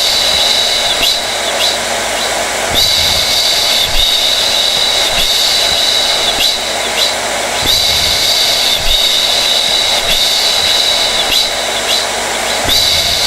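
Hair dryer (blow dryer) running steadily with a loud rushing of air. A high whine from its fan motor fades in and out every second or two.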